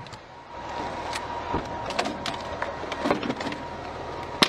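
Military truck running steadily, with scattered sharp cracks and knocks over it, the loudest near the end.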